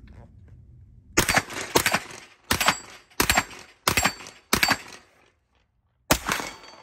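Seven gunshots from a carbine fired at steel targets. Six come in quick succession about two-thirds of a second apart, then a pause and a seventh shot near the end, each followed by a short echo and the ring of a hit on steel.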